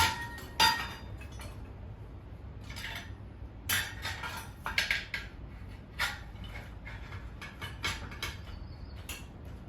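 Metal tire irons and the steel tire-changer stand clinking and scraping against a dirt bike wheel rim while a tire bead is levered on: a string of irregular sharp metallic clinks, a second or so apart.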